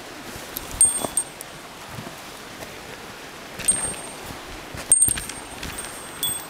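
Footsteps and handling knocks on snow and dry leaf litter, with a small bell giving a brief high jingle at several of the jolts, four or five times, over a steady background hiss.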